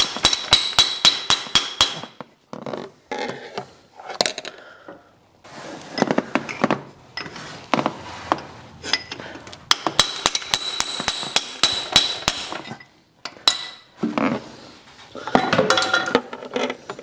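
Hammer knocking a core plug through in a Land Rover 300Tdi diesel engine block. It comes as quick runs of ringing metal-on-metal blows, about four a second, in three bursts with short pauses between, until the plug gives way.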